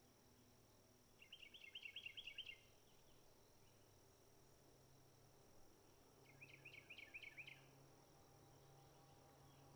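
A bird sings a short, rapid trill twice, about a second in and again about five seconds later, each trill lasting just over a second. A faint, steady, high-pitched drone runs underneath.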